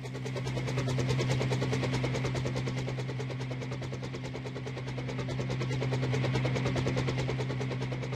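Double Horse 9053 coaxial RC helicopter running its motors and rotors: a steady hum under a very fast, dense rattle from the motors and gears. The sound grows louder over the first second and swells and eases slightly after that.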